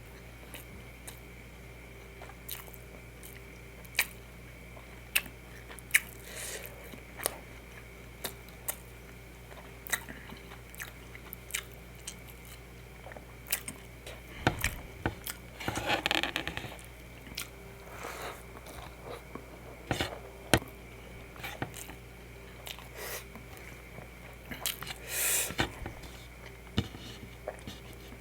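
Close-miked chewing and biting of food, with sharp wet mouth clicks and occasional crunches. The sound is louder and denser in a stretch about halfway through and again near the end, over a faint steady hum.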